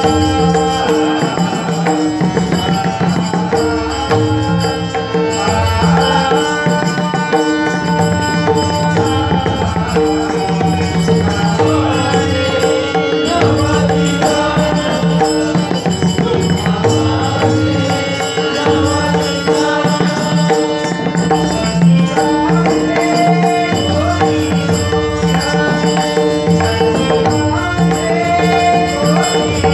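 Marathi abhang devotional music: pakhawaj drumming under steady held notes, with a sung melody line that rises and falls.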